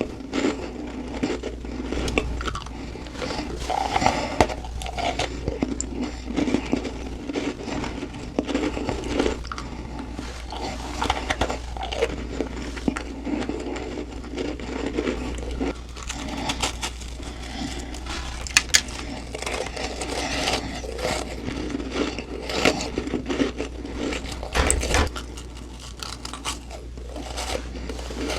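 A person chewing humidifier frost close to the microphone: a steady run of crackling crunches, with a few sharper snaps now and then.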